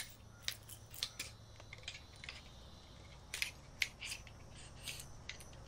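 Collapsible aluminium trekking pole being slid together and folded by hand: a scatter of light, irregular clicks and taps from the metal sections.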